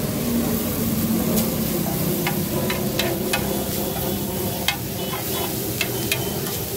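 Chopped onions and tomatoes sizzling on a large flat tawa griddle while a metal spatula stirs them, scraping and clinking sharply against the griddle many times from about a second in.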